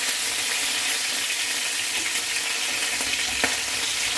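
Chicken wings frying in hot oil in a pan: a steady sizzle with a few faint crackles.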